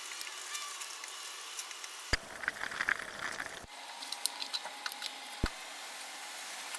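Handling noises from work on a small speaker: scattered small clicks and ticks, with a scraping rustle about two seconds in and a few sharper knocks.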